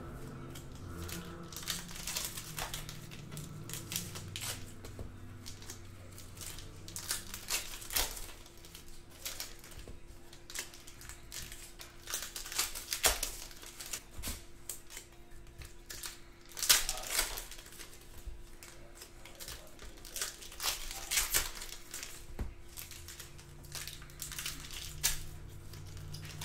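Foil trading-card pack wrappers crinkling and tearing as packs are opened by hand, in irregular sharp crackles and snaps over a faint steady hum.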